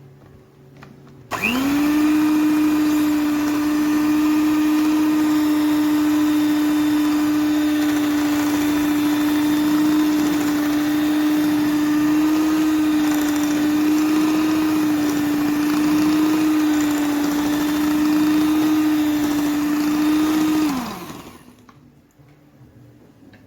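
Electric hand mixer switched on about a second in, its motor whine rising quickly to a steady pitch as it beats flour into a creamy pastry dough. It runs steadily for about twenty seconds, then winds down and stops near the end.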